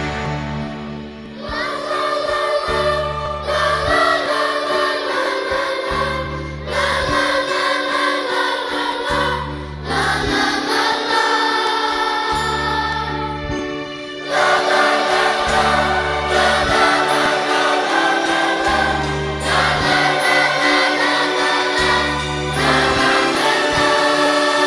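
Music: a choir singing held chords over low notes that change every two to three seconds.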